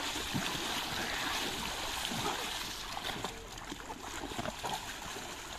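Swimming-pool water splashing and sloshing, with many small irregular splashes from hands paddling and a float being pushed through the water.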